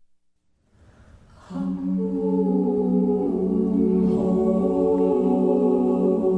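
Music starts after about a second and a half of near silence: a held, steady choral chord, voices humming or singing sustained notes.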